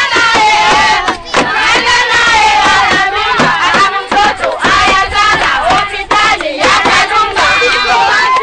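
A crowd of women and children singing and shouting together, many voices overlapping.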